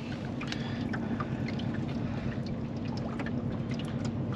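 Water lapping and gurgling against the hull of a small boat, over a steady low rumble, with scattered faint small ticks.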